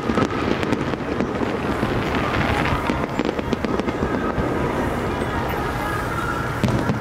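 Aerial fireworks shells bursting overhead, with dense, continuous crackling and frequent sharp bangs.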